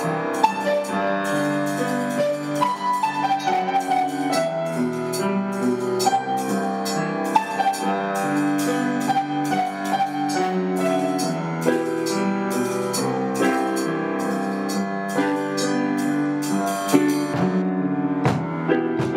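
Instrumental music: piano over a drum kit keeping a steady beat.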